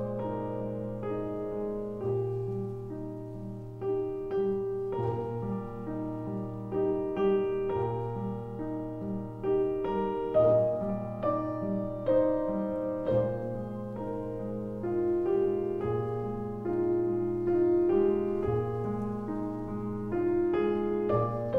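Background piano music: a steady flow of struck notes over held bass notes.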